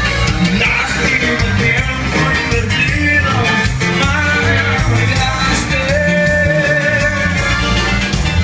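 Music: a recorded song with a steady, note-changing bass line under melodic lines.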